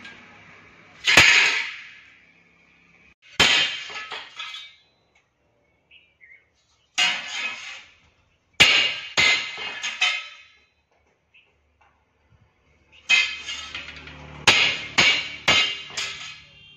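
Hammer blows on steel angle iron laid over a heavy steel block: sharp, ringing metal clangs that come in scattered groups, with a quick run of several strikes near the end.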